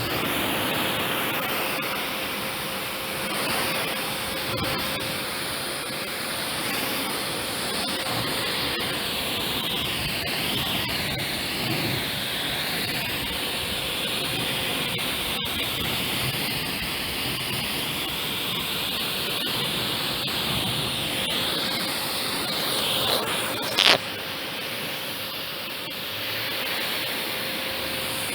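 Kärcher K7 pressure washer spraying water in a steady hiss, with the machine's steady hum underneath. A brief sharp sound rises above it about three quarters of the way through.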